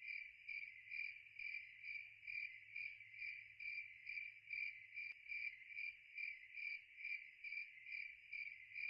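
Cricket chirping: a steady high trill that pulses about three times a second, with a faint low hum underneath.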